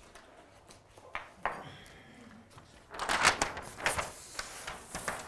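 Large flipchart paper sheet being lifted and flipped over the top of the easel, rustling and crackling for about two seconds, after a couple of faint knocks.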